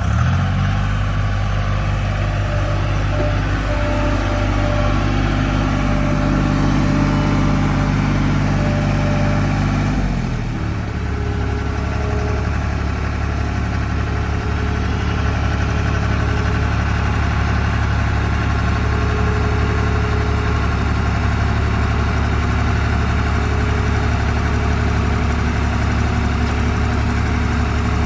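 John Deere 240 skid steer's diesel engine running steadily. About ten seconds in its speed drops and it settles into a steady idle.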